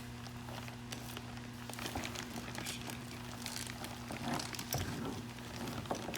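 Scattered soft crinkling and small clicks as the resin-wet, plastic-backed repair sleeve is handled, over a steady low electrical hum.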